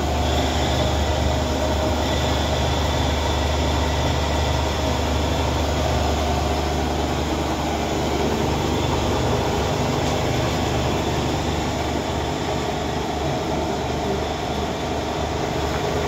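Belt-driven flour mill (atta chakki) running steadily under its electric motor, grinding grain fed from the hopper, with a constant low hum.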